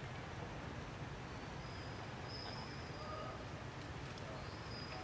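Outdoor forest ambience: a steady low rumble with faint, thin, high whistling calls, two of them each lasting about a second.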